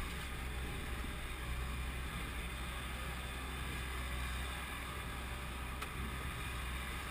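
Heavy equipment engine running with a steady low rumble.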